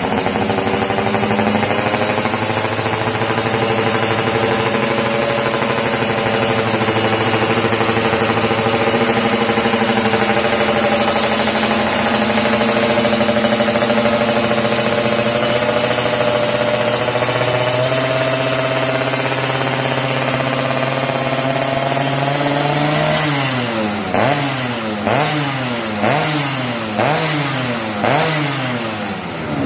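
Yamaha F1ZR two-stroke single-cylinder engine running through an aftermarket Creampie Jogja expansion-chamber exhaust, holding a steady pitch that slowly rises a little. Near the end it is blipped on the throttle in a quick series, about one rev a second, each rising and falling sharply.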